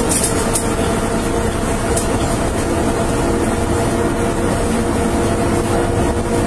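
Steady vehicle rumble with a constant hum, heard from inside an ambulance's patient compartment, with a few faint ticks or rattles right at the start.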